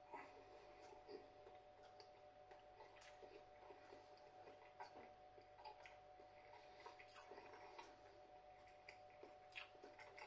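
Near silence: faint mouth sounds of someone chewing a bite of burger, soft irregular clicks over a faint steady hum.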